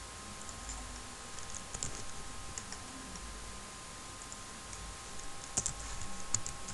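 Keystrokes on a computer keyboard in two short bursts of typing, the first starting about half a second in and the second near the end.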